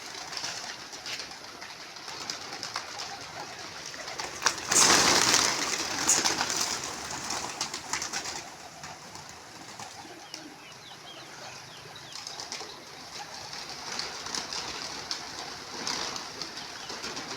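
Domestic pigeons cooing in a loft, with a loud rustling burst about five seconds in.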